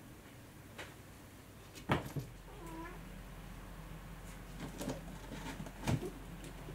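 A Munchkin cat gives a short, bending meow-like call, with several sharp knocks or taps around it, the loudest just before the call.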